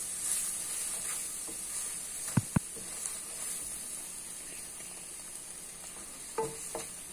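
Onion, tomato and spice masala sizzling gently in oil in a pan over a gas flame as a wooden spatula stirs it, a steady soft hiss. Two sharp knocks close together about two and a half seconds in.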